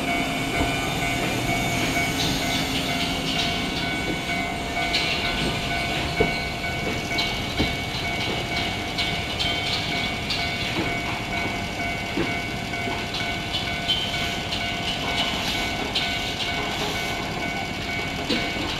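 Tokyo Metro 01 series third-rail train passing slowly, its chopper control giving a steady high whine that holds through the whole pass. Scattered sharp clicks from the wheels run under it along with a continuous running rumble.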